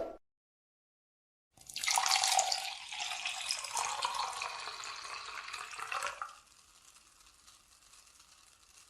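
A drink poured into a glass, starting suddenly after a second and a half of silence, loudest at first and easing off over about four and a half seconds. A faint fizz of bubbles follows.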